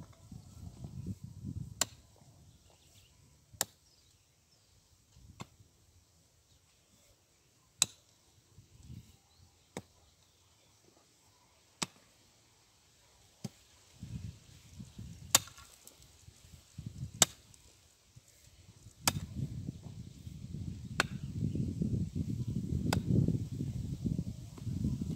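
A hand digging tool striking into earth, one sharp hit about every two seconds as a trench is dug by hand. A low rumbling noise builds up over the last third.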